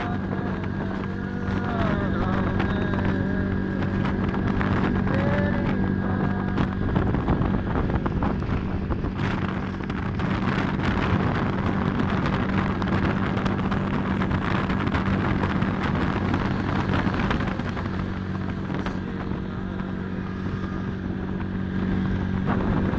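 Motorcycle engine running at a steady cruising speed, a constant low hum, with wind rushing over the microphone as it rides along a highway.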